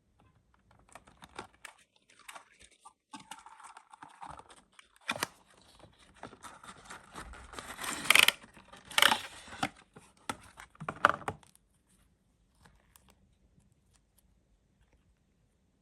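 Plastic packaging crinkling and tearing as a brush is unwrapped, with irregular rustles and clicks, loudest around eight to nine seconds in. It stops a little before the end.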